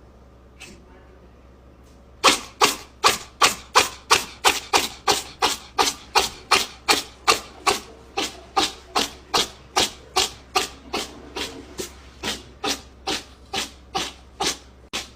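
A steady run of sharp taps or knocks, about three a second, starting about two seconds in and slowly getting softer.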